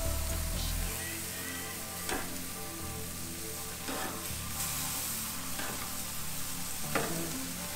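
Chicken sizzling on a very hot grill, with a few sharp clicks, under background music.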